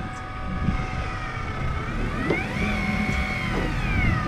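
Electric fishing reel's motor whining as it winds line in, its pitch slowly rising and falling in long swells as the load on the line changes.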